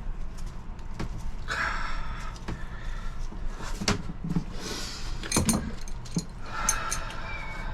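Metal tools and fittings clinking and rattling as hands work on the engine's hose and manifold connections: several sharp knocks and two longer jingling rattles over a steady low hum.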